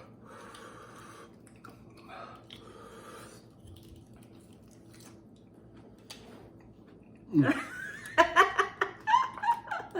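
Soft mouth and eating noises during a meal, then, about seven seconds in, a person bursts out laughing loudly in quick, broken pulses.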